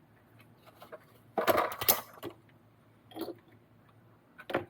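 Small metal kit hardware, nuts and screws, clinking and rattling against each other and the table: a quick cluster of clinks about a second and a half in, then two single clicks later on.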